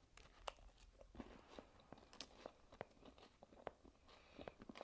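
Faint, close crunching and chewing of a protein bar with a crisp puffed coating: many small irregular crunches as it is bitten and chewed.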